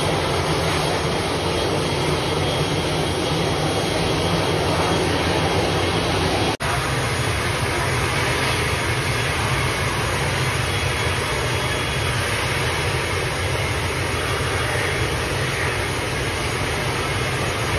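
ATR turboprop airliner's engines and propellers running at taxi power, a steady drone with a low hum, broken once by a very short dropout about six and a half seconds in.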